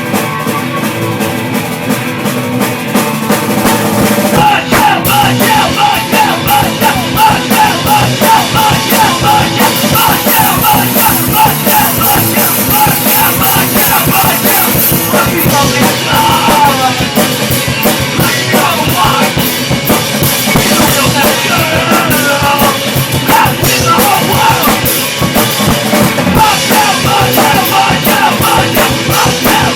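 Rock band's demo recording playing, drum kit prominent. The band comes in fuller and louder about four seconds in.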